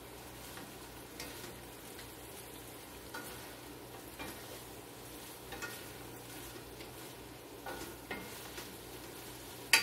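Wooden spoon stirring chicken and vegetables in a sizzling skillet. Short clicks of the spoon against the pan come every second or two over a steady frying hiss, with one sharp knock near the end.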